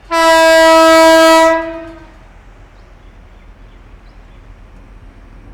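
A train horn sounds one loud, steady note for about a second and a half, then fades away, leaving a low, steady background noise.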